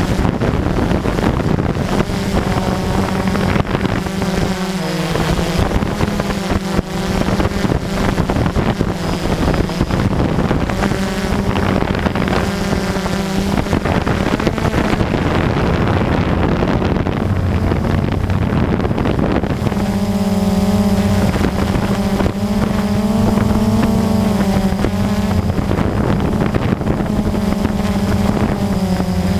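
Blade drone's motors and propellers whining steadily in flight, heard close up, with pitch that wavers as the motors adjust and grows stronger about two-thirds of the way in. Wind buffets the microphone throughout.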